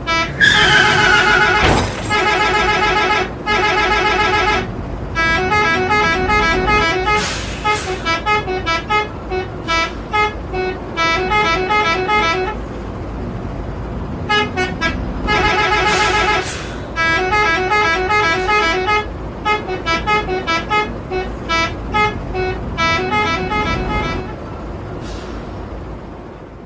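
Indonesian bus 'telolet' multi-tone horn playing quick melodic runs of short notes, in repeated bursts with short pauses. A brief falling glide sounds about two seconds in.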